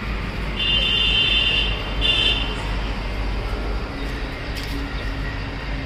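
Steady low rumble of a vehicle or traffic, with two high-pitched beeps: a longer one about half a second in and a shorter one about two seconds in.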